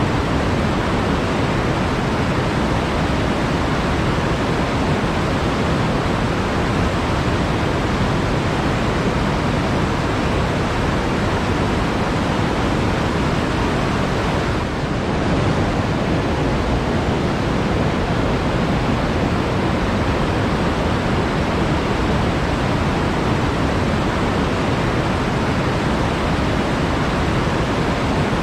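Flowing water rushing steadily, a dense, even hiss with no distinct splashes, dipping slightly for a moment about halfway through.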